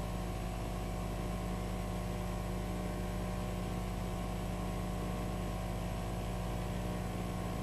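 Small outboard motor on a 24 ft Strider Club catamaran, running steadily under way: a constant engine drone with a steady pitch.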